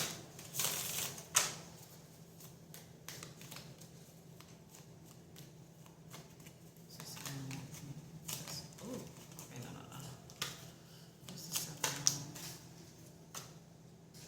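Irregular light clicks and rustles of small objects being handled, with louder clusters just after the start and again near the end.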